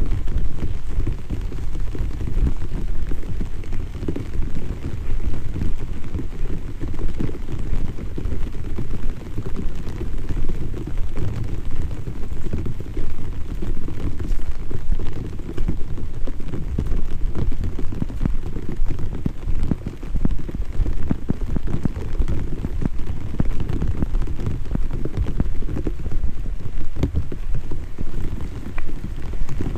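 Drizzling rain, a dense, irregular patter of drops with a deep rumble underneath, steady throughout.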